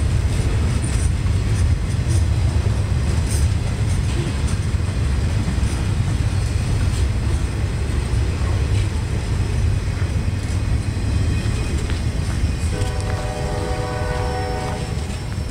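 Cars of a loaded rail train rolling past with a steady low rumble. Near the end a horn sounds for about two seconds.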